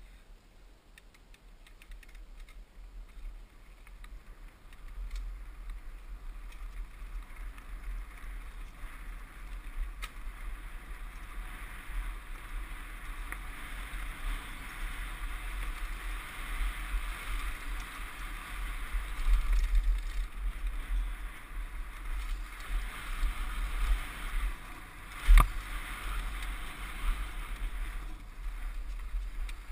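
Mountain bike riding fast down a dirt trail: wind buffeting the microphone over a steady rush of tyres on dirt and the bike rattling, growing louder as speed builds over the first few seconds. A single sharp knock sounds about 25 seconds in.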